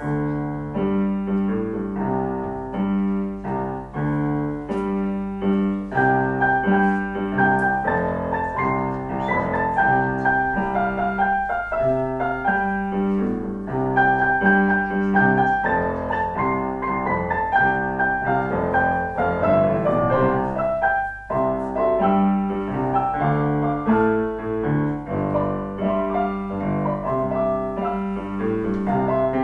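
Keyboard ensemble playing a piece of steady rhythmic chords under a melody, with a short break in the sound about three quarters of the way through.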